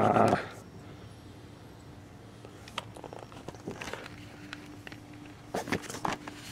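A loud voice-like sound stops about half a second in, then scattered light clicks and rustles of things being handled, with a cluster near the end, over a faint steady hum.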